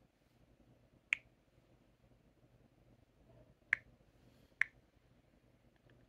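Three short, sharp clicks: one about a second in, then two more about a second apart past the middle, over a faint background hum.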